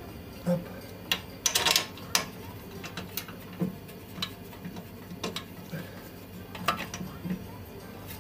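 Irregular metallic clinks and knocks of tools and suspension parts being handled at a BMW E36's front strut and wheel hub during a shock absorber change, with a cluster of clinks about a second and a half in.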